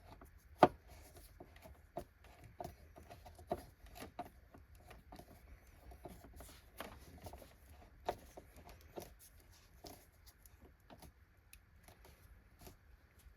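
Scattered clicks, taps and small knocks of hands and tools working on a Hoover WindTunnel upright vacuum during reassembly, with one sharper click about half a second in.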